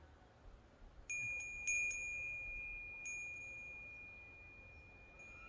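Korean wind bell (pung-gyeong), a small hanging bell with a fish-shaped vane, its clapper struck by the wind: one clear high ring about a second in, two more strikes in quick succession just before two seconds, and another at three seconds, the single tone fading slowly.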